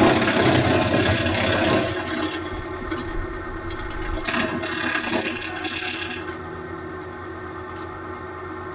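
Hydraulic wood chipper's engine running steadily with some mechanical rattle, louder for the first two seconds and then settling to a lower level.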